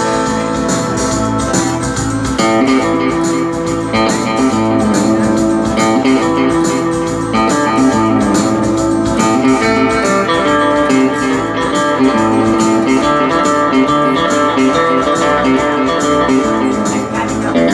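Guitar-led band music with a steady beat.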